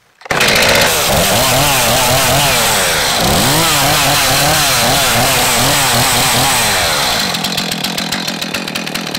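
Stihl MS 251 chainsaw's two-stroke engine revved up and down in quick repeated blips of the throttle. Near the end it drops to a lower, rougher, uneven running.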